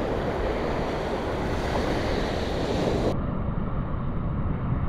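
Surf washing onto a sandy beach with wind rushing over the microphone: a steady noise that turns duller, losing its top end, about three seconds in.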